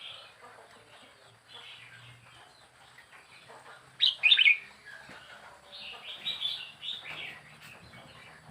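Wild-caught red-whiskered bulbul, kept as a cage bird, singing short chirpy phrases; the loudest burst comes about four seconds in, with another run of notes about two seconds later.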